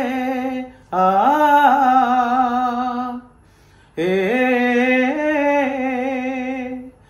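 A man singing a Malayalam folk song unaccompanied, in long held vocal notes. Two sustained phrases each swoop up at the start, then hold steady with a slight waver, with short breaths between them.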